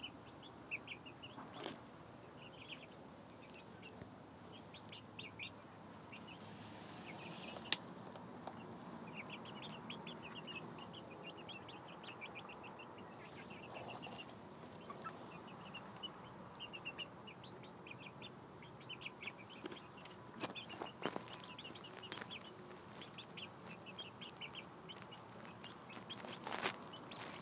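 Young pullets, five to seven weeks old, peeping in quick runs of short high chirps, with a few sharp clicks here and there.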